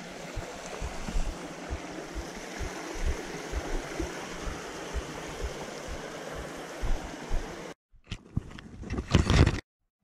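A shallow creek rushing over rocks in riffles, with frequent low thuds of footsteps on the rocky bank. The sound ends abruptly about eight seconds in, and a short cluster of knocks and noise follows.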